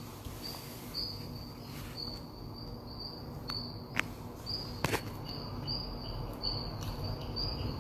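High-pitched, insect-like chirping repeated about twice a second. Two sharp clicks come about four and five seconds in.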